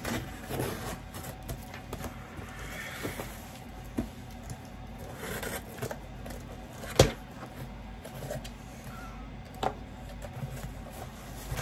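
Hands opening a cardboard box and handling its packing: rustling and scraping with a few sharp knocks, the loudest about seven seconds in.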